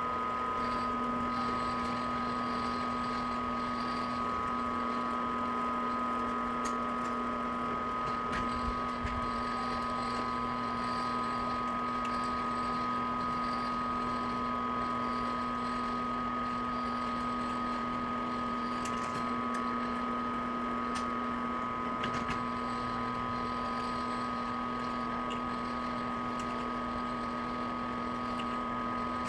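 A machine running steadily: an even hum with a constant whine that holds at one level throughout, with a few faint clicks.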